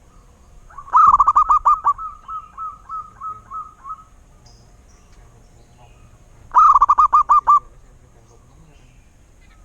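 Zebra dove (perkutut) song: a quick run of staccato cooing notes about a second in that trails off into softer, spaced notes, then a second short quick run about six and a half seconds in.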